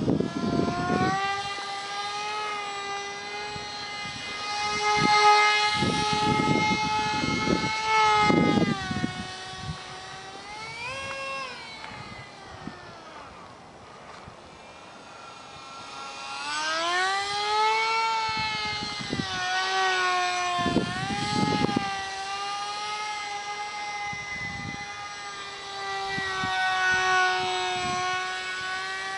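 Ultra micro RC jet model's small motor whining in flight, its pitch rising and falling with the throttle and its loudness swelling and fading as it flies nearer and farther. Short low rumbles come and go beneath it.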